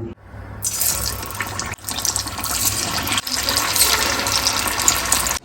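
Elephant foot yam pieces deep-frying in hot oil, with a steady loud sizzle and crackle. There are short breaks about two and three seconds in.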